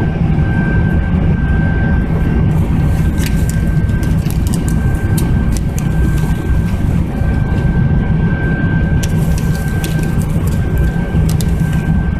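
Airliner cabin noise in flight: a loud, steady low rumble with a thin, steady high tone above it, and a few light clicks scattered through.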